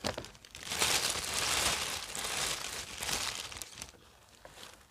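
Clear plastic packaging bag crinkling and rustling as it is crumpled by hand, loudest from about one to three and a half seconds in, then fading to a few fainter crackles near the end.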